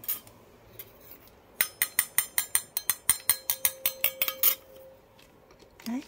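Spoon clinking rapidly against a small feeding bowl, about seven quick strikes a second for about three seconds, with the bowl ringing faintly under the later strikes.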